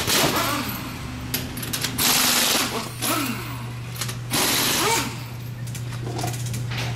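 A ratchet wrench rattling in short bursts about every two seconds as bolts are undone to remove a throttle body. A low steady hum runs underneath from about two and a half seconds in.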